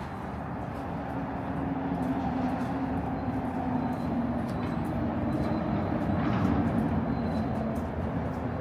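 A vehicle going by: a steady low hum that grows louder toward the middle and then eases off.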